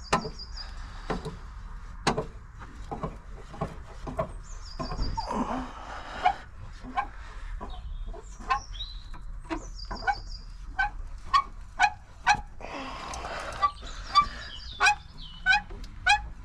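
Trolley jack being pumped under a car, its handle squeaking with each stroke about every half second. Birds chirp high above it.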